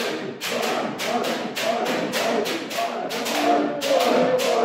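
Kendo drill: many practitioners shouting kiai at once while bamboo shinai crack against armour and stamping feet slap the wooden floor, several sharp impacts a second.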